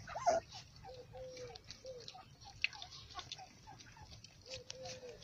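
Puppies lapping and chewing at a bowl of milk, with many small wet clicks, while one or more of them whimper in short, repeated squeaky whines, about two a second.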